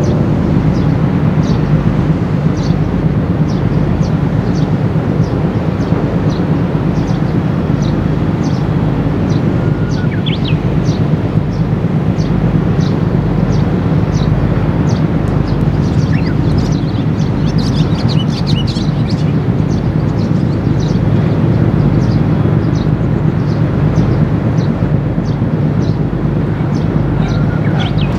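Steady low drone of tugboat diesel engines pushing a large warship around. Small birds chirp over it, a short chirp about every half-second, with a busier burst of calls about two-thirds of the way through.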